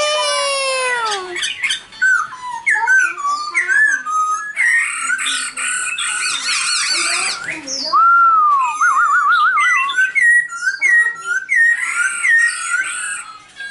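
Black-throated laughingthrush singing a long, varied song of loud whistles. It opens with a long falling whistle, runs through quick gliding notes, then gives an arched whistle and a fast wavering trill a little past halfway.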